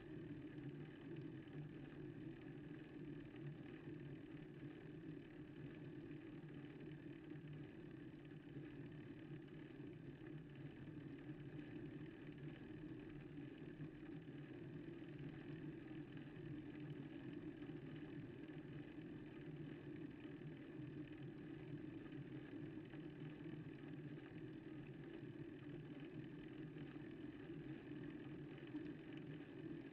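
Steady low rumble and hum from a bicycle ride at walking pace, picked up by a bike-mounted camera's microphone, even throughout with no distinct clicks or knocks.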